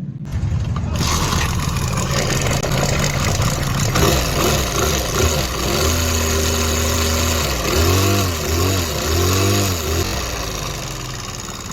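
Motorcycle engine with a reported sound problem, running and being revved: it runs steadily at first, then the revs rise and fall from about four seconds in, with three quick throttle blips near the end before it drops back toward idle.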